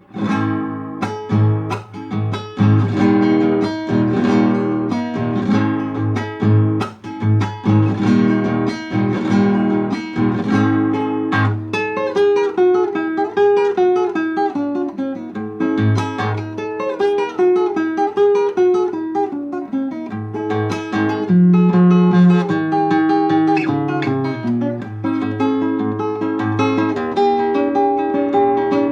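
Acoustic guitar playing a gato, an Argentine folk dance rhythm: strummed chords at first, then picked melodic runs from about twelve seconds in.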